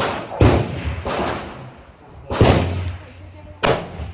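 Four loud gunshots, spaced irregularly over about four seconds, each followed by a long echoing tail.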